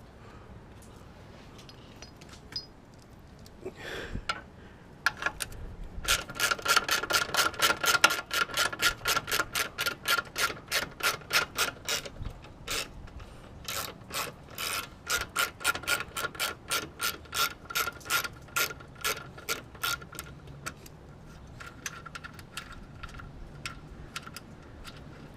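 Rapid, regular metallic clicking, about three to four clicks a second, each with a ringing metal note. It starts about a quarter of the way in, pauses briefly twice and stops near the end, with a few single knocks before it begins.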